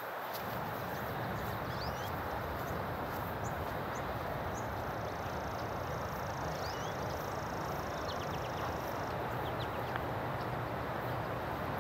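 Steady outdoor rumble with small birds chirping now and then; a thin, high trill runs for a few seconds in the middle.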